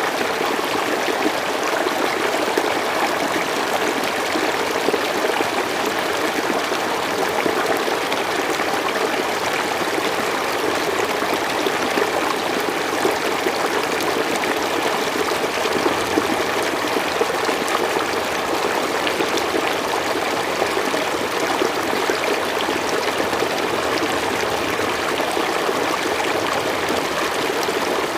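River water flowing and splashing over rocks, a steady rushing and trickling with no change in level.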